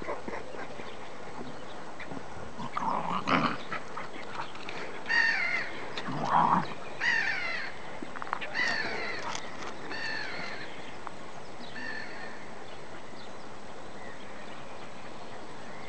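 A series of short, harsh animal calls, each falling in pitch, about six of them in the middle of the stretch, with two louder, lower sounds just before them, about three and six seconds in.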